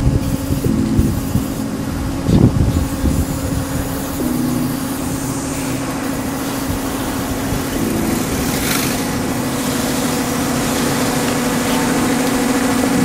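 A steady low engine-like hum runs throughout, with a short hiss of an aerosol spray can about eight and a half seconds in.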